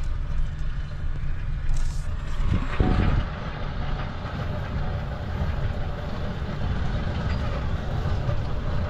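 A Vermeer T600C ride-on trencher's diesel engine runs under load while its digging chain grinds into rocky ground, with a sharper knock about three seconds in. The machine is struggling against rock and roots.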